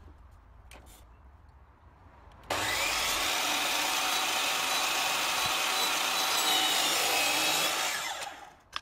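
DeWalt sliding mitre saw switched on about two and a half seconds in, running at full speed with a high whine as it bevel-cuts MDF skirting board, then spinning down near the end.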